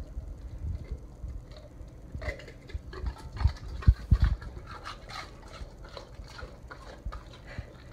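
Weimaraner–Labrador mix dog lapping and slurping raw egg from a stainless steel bowl, quick wet licks one after another. A few loud low thumps come in the middle, the loudest sounds here.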